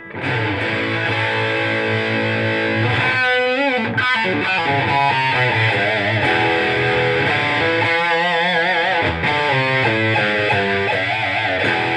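Electric guitar played straight into an Egnater custom tube amplifier switched to its 1-watt setting with the master low, with a distorted tone. It plays sustained chords and single-note lines, with wide vibrato bends about three seconds in and again about eight seconds in.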